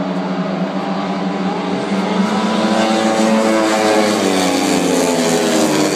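Speedway bikes' 500cc single-cylinder methanol engines racing past, several engines at different, shifting pitches. They grow louder about two seconds in as the bikes come down the straight.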